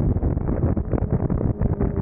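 Suzuki GSX-R750 motorcycle under way, its engine running beneath heavy wind buffeting on the camera's microphone.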